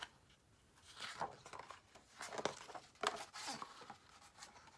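Soft rustling of paper as a picture book's pages are handled and turned, in a few short strokes.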